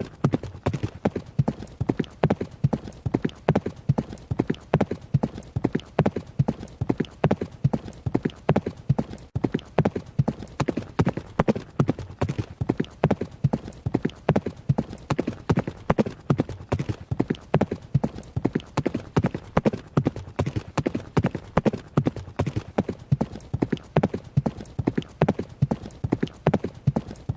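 Horse running: hoofbeats striking the ground in a steady, rapid rhythm of several beats a second.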